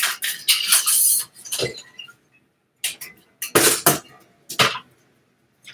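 Equipment being handled off-camera: irregular clattering and rustling with light clinks, pausing briefly about halfway through.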